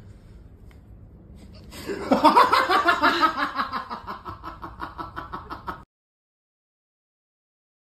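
A person laughing in a quick run of repeated chuckles that slide down in pitch. It starts about two seconds in and cuts off suddenly near the end.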